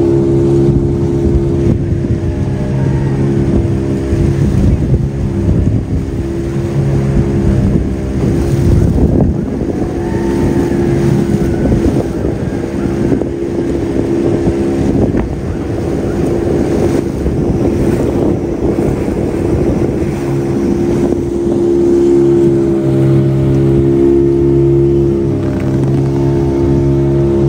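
Outboard motor of a small open boat running steadily under way, with wind on the microphone and water rushing past the hull. The wind and water noise is heaviest through the middle, and the engine's hum stands out most clearly near the end.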